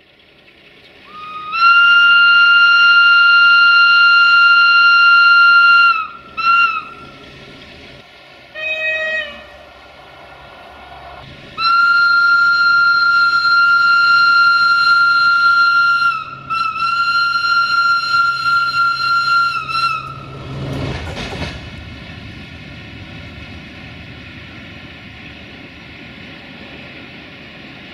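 Railway locomotive air horn giving a long, high single-note blast, a short toot, a brief lower chord-like blast, then two more long blasts with a short break between. A brief rushing whoosh follows, and then a steady low rumble.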